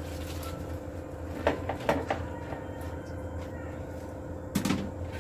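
A steady background hum runs throughout, with a few light knocks and clinks against a steel pan of spinach on the stove: three about one and a half to two seconds in, and a stronger one shortly before the end.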